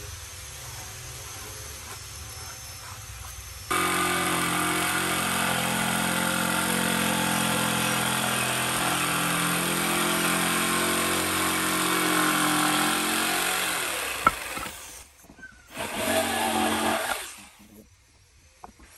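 Handheld electric jigsaw starting suddenly about four seconds in and cutting through a thick wooden board, running steadily for about ten seconds. It then dies away, runs again briefly for about a second and a half, and stops near the end.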